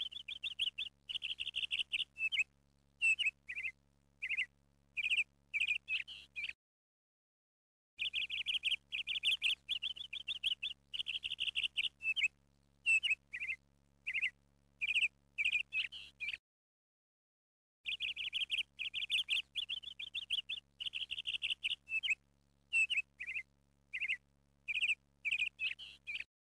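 Looped recording of birdsong laid in as a background track: a run of high chirps and short whistled calls over a faint steady hum. The same roughly eight-second passage repeats three times, with about a second and a half of dead silence between repeats.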